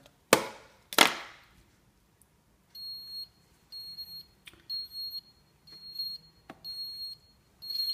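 Fibaro Flood Sensor dropping into water with two splashes, then its built-in acoustic alarm beeping: a high beep about once a second, the sign that it has detected water.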